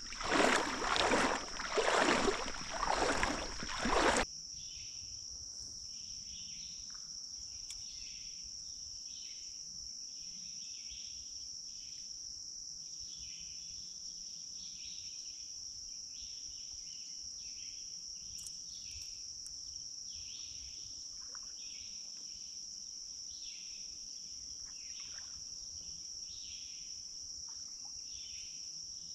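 Water splashing and sloshing in four or five surges, as of wading through a shallow stream, cutting off abruptly about four seconds in. After that, a steady high insect drone with rhythmic chirping from crickets or katydids.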